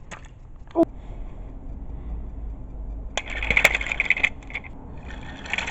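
Freight cars crashing in a rattling, clinking clatter, in a burst about three seconds in and another near the end, after a single sharp knock just under a second in.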